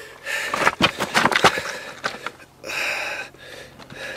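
A person breathing and sniffing close to the microphone, with a burst of rustling and quick clicks over the first second and a half, then a breath out about three seconds in.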